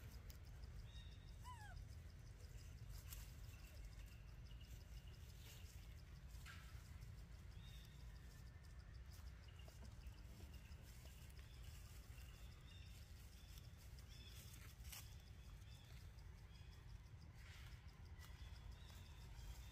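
Near silence: faint outdoor ambience with a low rumble, scattered faint high chirps and a few soft clicks, and one brief falling squeak about a second and a half in.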